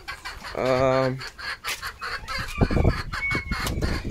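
Backyard chickens clucking, with one short wavering call about a second in. Wind rumbles on the microphone, and a few sharp wooden knocks near the end come from a wooden gate being handled.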